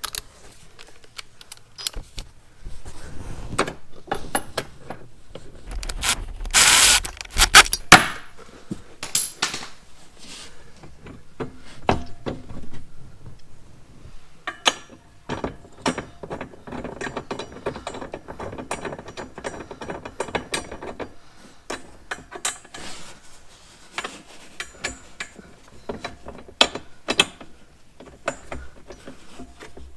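Metal clicking and rattling of hand tools and hardware as a seat belt anchor nut is threaded on and run down, with ratchet-like clicks. A loud burst of noise comes about six to eight seconds in.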